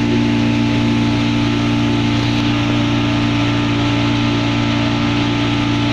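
Pontoon ferry boat's engine running steadily under way at a constant pitch, with the hiss of water churning in the wake behind the stern.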